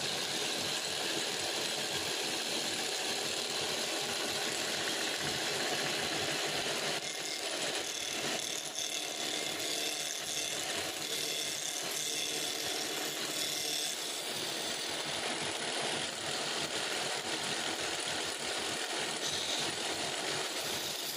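Wood lathe running while a hand-held chisel cuts a spinning square wooden blank down to a round cylinder, a steady, dense cutting noise throughout.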